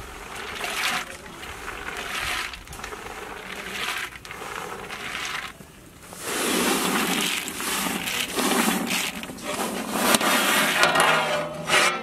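In-shell peanuts sliding off a metal plate and pouring into a large metal pot, a rushing, rattling noise that comes in waves and grows louder about halfway through.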